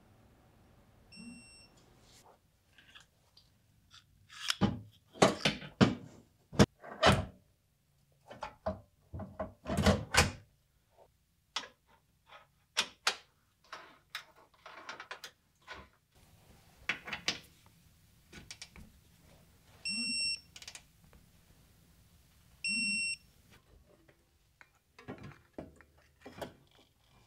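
Hand tools working bolts on a car's front end: clicks and metal clanks of a ratchet and sockets, with a digital torque wrench beeping briefly about a second in and twice more later, signalling that the set torque has been reached.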